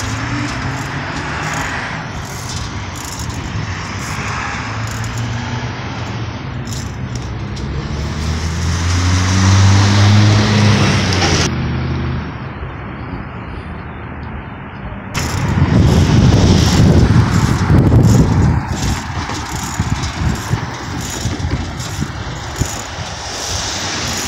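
Street traffic going by: one vehicle's engine rises in pitch as it speeds past about ten seconds in, and a louder low rush of another vehicle passes a few seconds later.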